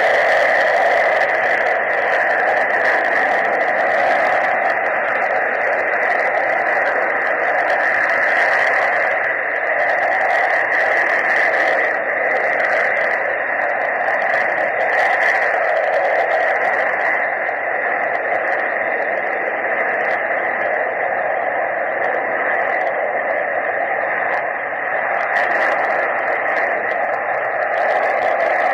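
Several Panavia Tornado jets' RB199 engines running on the ground, heard from a distance as a loud, steady rushing noise while the jets hold before take-off.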